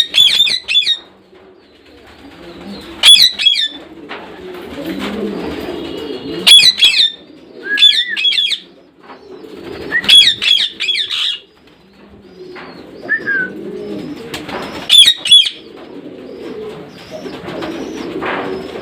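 Parrots calling: sharp, squeaky chirps in short clusters every few seconds, with a softer, lower murmur of calls in between.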